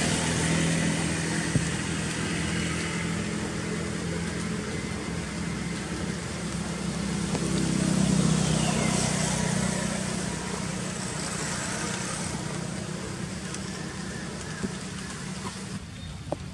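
Steady engine hum of a motor vehicle over a hiss, growing louder to about halfway through and then slowly fading.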